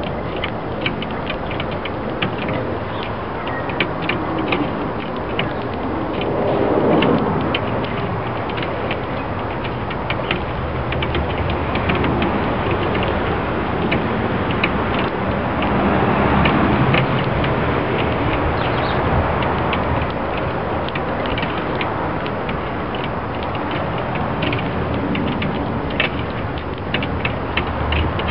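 Sparrows pecking bird seed off a glass table top: rapid, irregular taps of beaks on glass that sound like Morse code. Under the taps is a steady background noise that swells twice, about a quarter of the way in and again past halfway.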